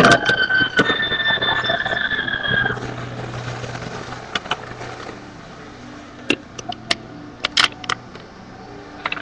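Plastic Lego bricks clicking and knocking as a Lego gumball machine is pressed and worked by hand, a few sharp clicks with a cluster near the end. For the first three seconds a steady high tone sounds, then stops.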